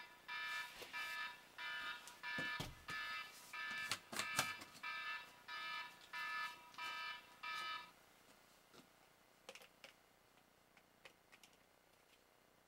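Electronic alarm beeping about twice a second, then stopping about eight seconds in; a few soft knocks of someone moving come in the middle, and only faint clicks of handling follow the alarm.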